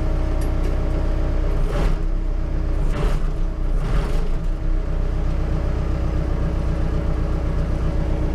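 Backhoe engine running steadily close by, a constant low drone, with a few brief louder rushes about two, three and four seconds in.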